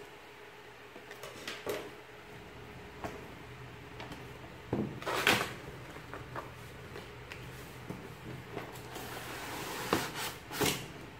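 Cardboard graphics-card packaging being handled and opened, with scattered rustles, scuffs and light knocks of card against card. Near the end, a longer scrape of cardboard on cardboard comes as the brown inner box slides out of the printed outer sleeve, then two sharper knocks.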